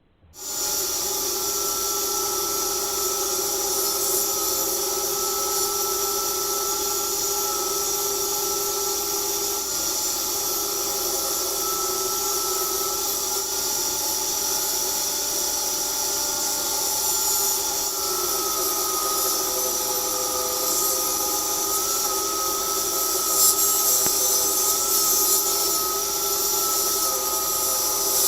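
Table saw running steadily with a high whine while ripping wooden flooring planks to a narrower width; its pitch wavers slightly in the second half.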